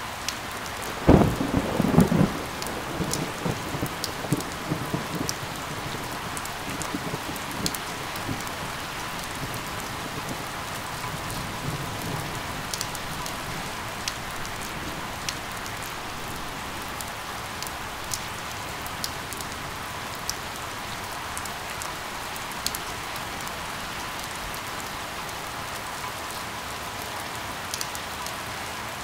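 Steady rain falling, with scattered sharp drip clicks. About a second in, a loud thunderclap breaks and rolls on as a low rumble that fades over several seconds.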